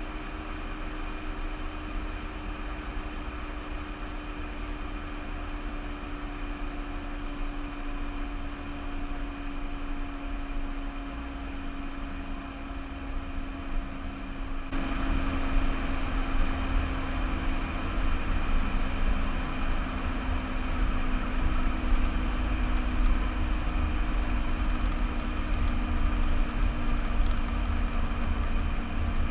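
Car driving along, heard from a car-mounted camera: steady engine and road noise with a low hum that slowly drops in pitch. The noise gets louder about halfway through.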